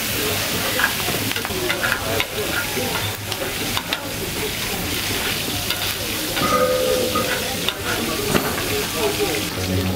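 Food sizzling and frying in a large paella pan, with irregular clicks and scrapes of a utensil stirring it.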